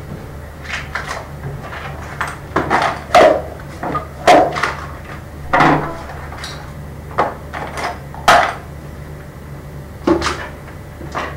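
Small objects being handled and set down on a hard surface: a string of irregular knocks and clatters, the loudest about three, four and eight seconds in, over a steady low hum.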